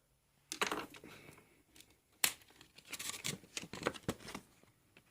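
Crinkling and rustling of craft supplies being handled, with a sharp tap a little after two seconds in and a run of crackling clicks toward the end.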